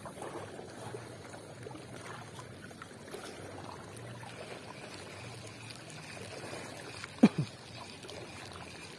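Shallow seawater trickling and lapping over shore rocks. About seven seconds in, a brief sound slides down sharply in pitch.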